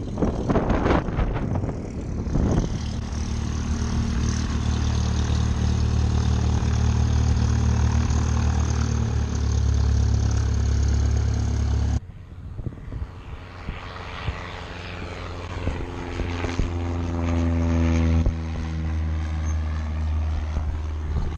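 Small propeller plane's piston engine running close by, a loud steady drone with its prop wash blowing on the microphone. About twelve seconds in, it cuts sharply to a quieter engine sound whose tones rise and fall.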